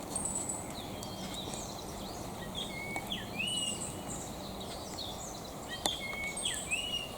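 A songbird singing the same short whistled phrase twice, about three seconds apart. Each phrase has a steady note, a sweep, then a higher held note. A steady low rushing noise runs underneath.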